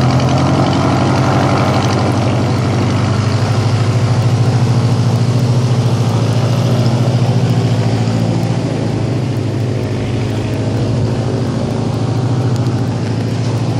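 A loud engine running steadily with a low, pulsing drone, easing off a little about eight seconds in.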